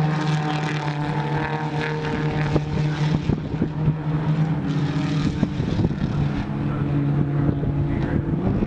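Holden Gemini race cars' four-cylinder engines heard at a distance, holding a steady, even-pitched drone at high revs, with a patch of crackling about three to six seconds in.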